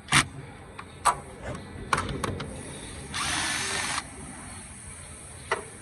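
A power tool runs for just under a second, about three seconds in, spinning out a 10 mm bolt, after several sharp metallic clicks as the socket is fitted. One more click comes near the end.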